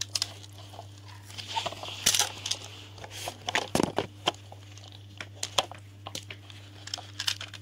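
Plastic toy trucks being handled and moved on a foam play mat: scattered small clicks and knocks of plastic, bunched twice in the middle, over a steady low hum.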